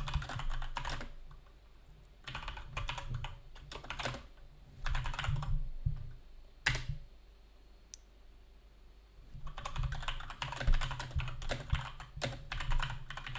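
Computer keyboard typing in short bursts with pauses, a lull of a few seconds in the middle, then a longer run of quick typing near the end.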